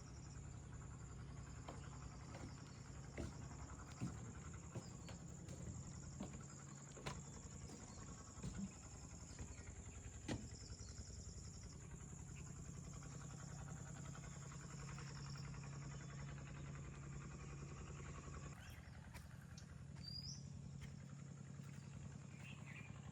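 Faint nature ambience: insects chirring steadily and high, over a low steady hum, with a few scattered clicks and a short bird chirp near the end.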